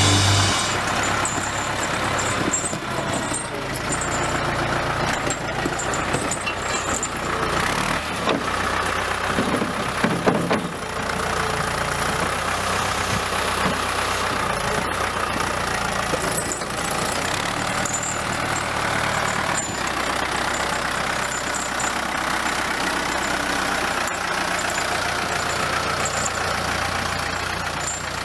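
Valmet 702 tractor's diesel engine running steadily as it ploughs snow with its front loader, with a brief louder knock about ten seconds in.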